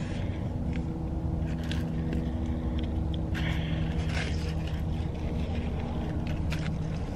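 A car's engine idling, a steady low hum heard inside the cabin, with light rustling of paper wrappers and a napkin and soft chewing sounds over it.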